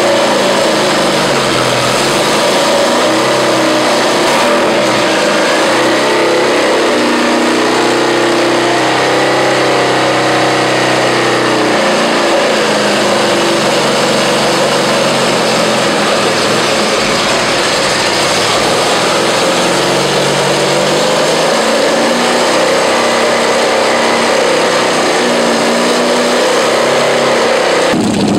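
R12 twelve-rotor Wankel rotary engine running on a dyno in a low-power test run, its pitch easing up and down a little. It is held under about 2000 rpm because its carburettor cannot flow enough fuel for more.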